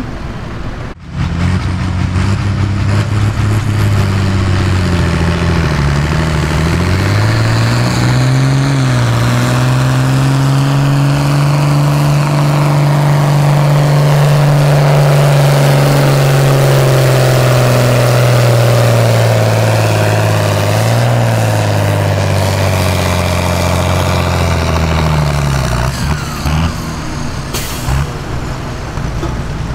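John Deere farm tractor's diesel engine at full throttle pulling a weight-transfer sled under heavy load. The engine note climbs about seven seconds in, holds high and steady, then drops away near the end.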